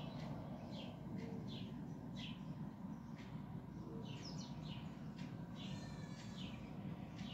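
Small birds chirping: short, high chirps falling in pitch, about two a second, with one brief buzzy trill near the end, over a steady low rumble.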